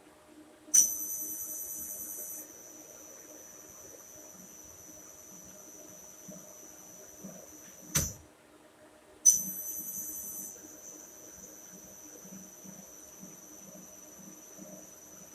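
Fanuc spindle amplifier driving a spindle motor under test. A high-pitched steady electrical whine switches on suddenly, louder for its first couple of seconds, and stops with a thump about halfway. It starts again about a second later and stops with another thump near the end, over a low steady hum.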